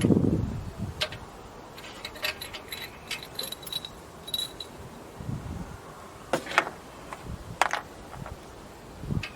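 Light metallic clinking and scattered sharp clicks of small metal tools or parts being handled, with a run of small ringing chinks in the first half and two sharper clicks near the end.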